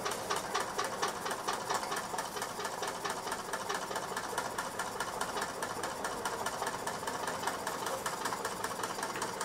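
Mamod SP8 model stationary steam engine running steadily under steam, giving a rapid, even mechanical beat.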